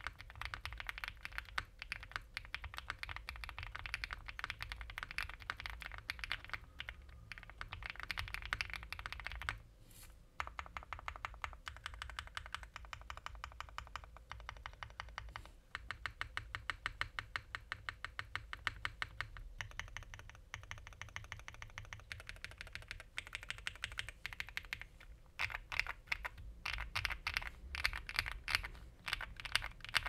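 Rapid typing on a custom mechanical keyboard: lubed OwLab Tungsten 63g linear switches, an FR4 plate, ABS keycaps and an aluminium case without case foam, giving fast runs of keystrokes. The typing stops briefly about ten seconds in.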